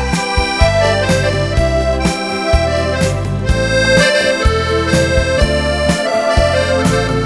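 Accordion playing a melody in sustained reedy notes over a regular low bass accompaniment.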